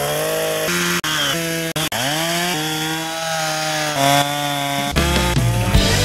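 Gas chainsaw running and being revved, its pitch stepping up and down, with a few abrupt breaks in the sound. About five seconds in it bites into a log and the sound turns fuller and rougher as it cuts; the owner calls the chain dull.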